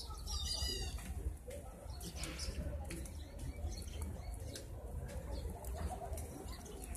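Sparrows and doves at a feeding tray: a quick run of high chirping notes about half a second in, then scattered chirps and wing flaps, over a low steady rumble.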